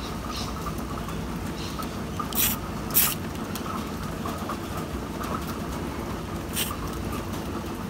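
Three brief hisses of spray paint, light bursts of matte black misted over a primed model engine, at about two and a half, three and six and a half seconds in, over a steady outdoor background hum.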